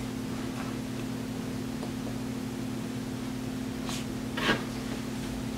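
Room tone: a steady low electrical hum with a faint even hiss, and one brief soft noise about four and a half seconds in.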